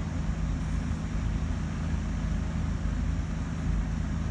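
A large diesel engine of construction machinery running steadily at a constant speed, with an even low hum.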